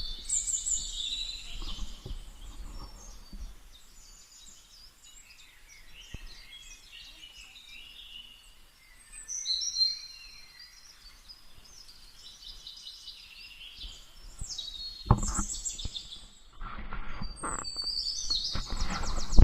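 Forest birds chirping and whistling in short repeated calls, with one louder call about halfway through. A run of thumps and rustles starts in the last few seconds and grows loudest at the end.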